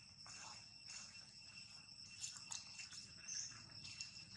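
Faint, steady, high-pitched insect chorus of a few held tones, with several soft clicks or rustles and a brief high chirp about three seconds in.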